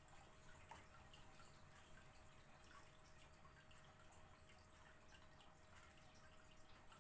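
Faint trickle and drips of blended rice milk pouring from a blender jug through a small mesh strainer into a saucepan of milk, with scattered small ticks over a quiet room.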